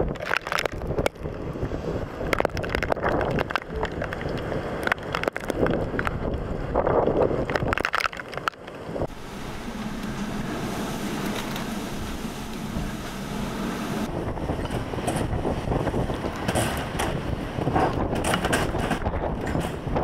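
Gusty wind buffeting the camera microphone, with scattered scuffing steps and handling knocks. In the middle, for about five seconds, it turns into a smoother, steady rushing noise, then goes back to gusts and knocks.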